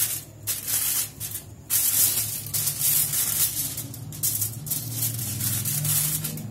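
Aluminium foil crinkling and rustling in a series of short bursts as a sheet is handled and folded over by hand, the bursts thinning out toward the end.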